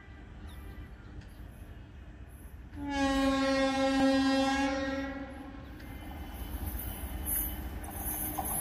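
Indian Railways electric locomotive horn giving one long steady blast of about two and a half seconds, starting about three seconds in. Afterwards the rumble of the approaching train builds.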